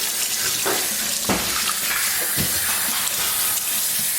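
Sink tap running steadily as water is rinsed over a baby capuchin monkey, with a few brief splashes.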